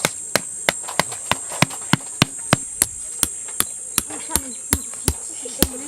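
Insects droning steadily at a high pitch, with sharp, evenly spaced clicks about three a second throughout.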